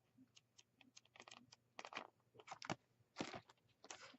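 Pages of a craft paper pad being flipped through: a series of faint, irregular papery flicks and rustles.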